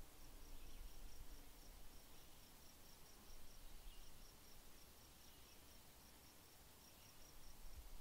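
Faint outdoor ambience of an insect chirping: a steady train of short, high chirps about three or four a second, with a couple of brief pauses, over a low rumble.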